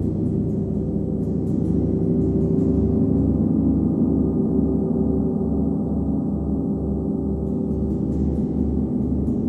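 39-inch Nepalese wind gong played with a homemade hard rubber ball mallet, giving a sustained, dense low drone. The drone swells a little in the middle and carries a low throb about twice a second.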